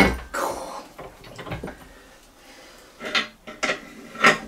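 Sharp metallic clanks and knocks from a spanner working a homemade cylinder-liner puller on an aluminium AC 2-litre engine block, as load is put on the stuck liner. There is a loud knock at the start and another half a second later, then three more about a second apart near the end.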